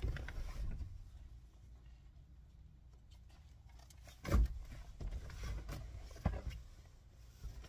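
A few scattered knocks and handling clunks as an aftermarket car radio head unit is picked up and handled, the loudest about four seconds in, over a low steady hum.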